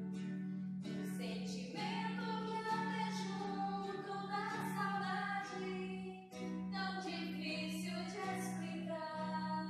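Two female voices singing a song together, accompanied by acoustic guitar, with a brief break between phrases about six seconds in.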